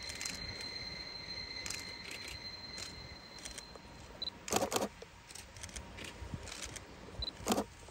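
Camera focus-confirm beeps, each followed a moment later by a shutter click, twice: about four and a half seconds in and again near the end. Before the first beep a steady high-pitched tone runs and stops about four seconds in.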